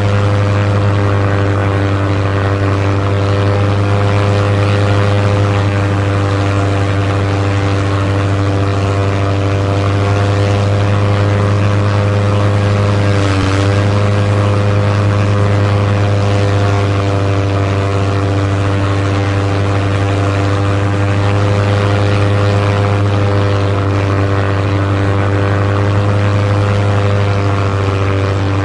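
Propeller airplane engine running steadily at a constant pitch, with a brief dip in pitch about halfway through.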